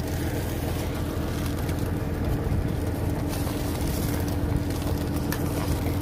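A steady engine hum, like a vehicle idling, with a constant low drone and one even tone throughout.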